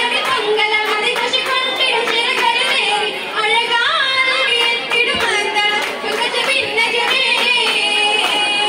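Girls singing a Mappilappattu song in chorus, with a steady beat of hand claps, as for an Oppana dance.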